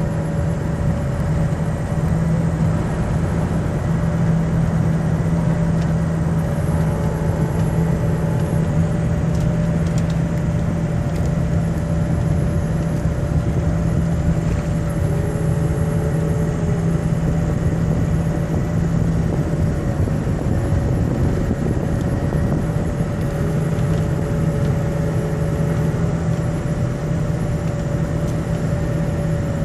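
Ford 6.0 Powerstroke V8 turbo-diesel pickup cruising at about 2000 rpm, heard from inside the cab: a steady engine and road drone with a strong low hum. The hum drops out for a few seconds about two-thirds of the way through, then comes back. This is the fan clutch noise the owner is showing.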